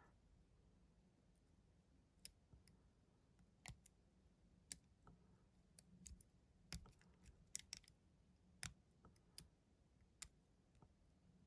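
Faint, irregular clicks of a lock pick and tension tool working the wafers inside a Reese tow-hitch wafer lock during picking, about a dozen scattered clicks over a low steady hum.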